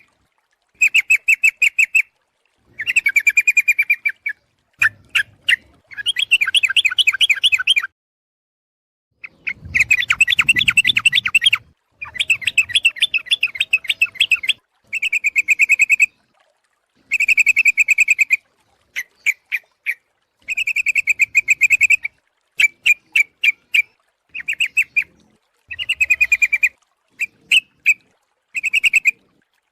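Yellow-vented bulbul (trucuk) calls from a bird-lure recording: a female calling for a male. The bubbly chattering phrases of rapid notes, each about a second long, repeat with short pauses, and there is a longer pause about eight seconds in.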